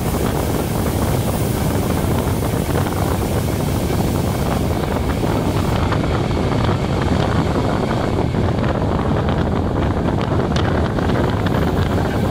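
Riding noise of a 'Pantograf' (žabotlam) electric multiple unit under way: a steady loud rush with a deep low rumble, and wind buffeting the microphone. About halfway through the highest hiss drops away, and a few faint clicks follow.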